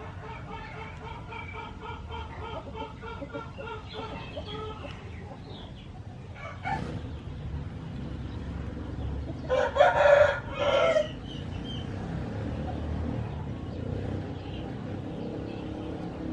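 A rooster crowing once, loudly, about ten seconds in, with chickens clucking in a quick series of short notes during the first few seconds.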